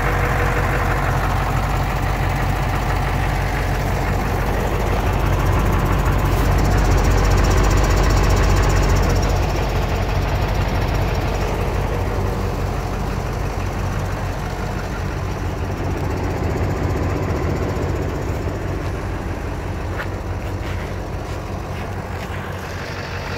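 Mercedes-Benz SK 1838's V8 diesel engine, with a mechanical injection pump, idling steadily. It grows a little louder around the middle, then slowly fainter through the second half.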